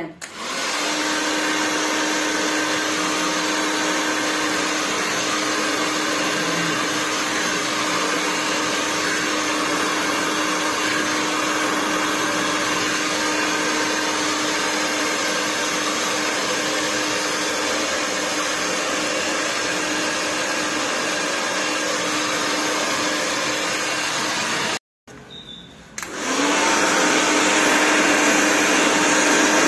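Hand-held hair dryer blowing on damp hair during a round-brush blow-dry: a steady rush of air over a low, even motor hum. It cuts out about 25 seconds in and comes back on a second later, a little louder.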